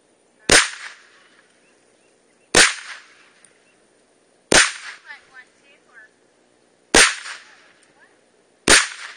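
Five semi-automatic rifle shots from an M1 Carbine firing .30 Carbine, fired one at a time about two seconds apart, each a sharp crack followed by a brief echo.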